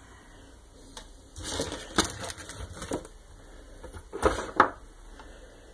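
Scattered clicks, knocks and short scrapes of things being handled and shifted among tangled cables and gear on a desk, with the loudest scrape about four seconds in.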